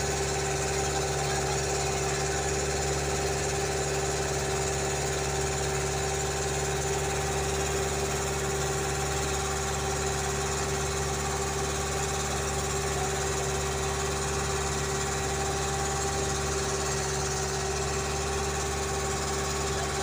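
A boat's engine running steadily at a constant speed, with an even, unchanging drone.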